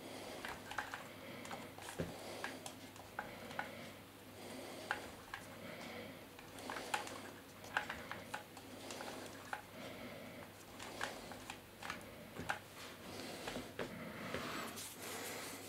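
Plastic propeller being screwed onto and off a DJI Phantom 3 Standard's motor hub by hand: irregular light clicks and ticks of plastic on metal, with a brief rub near the end.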